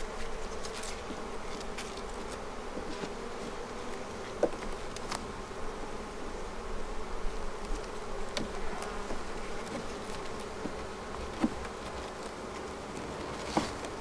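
Honeybee colony buzzing steadily from an open hive box, a dense, even hum. A few sharp clicks and scrapes of a metal hive tool prying wooden frames loose stand out above it.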